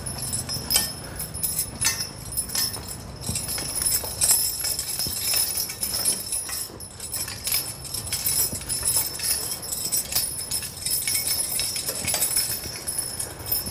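Team of draft horses walking in harness: the metal buckles, rings and chains of the harness jingle and clink irregularly with their steps, along with hoofbeats.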